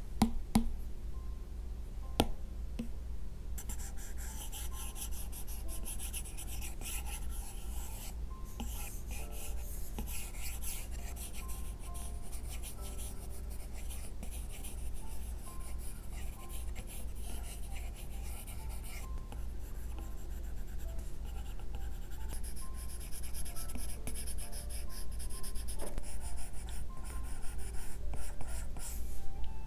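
Apple Pencil nib scratching across an iPad Pro fitted with a paper-texture screen film, a dry rasp that comes and goes with each sketching stroke. A couple of light pen taps near the start.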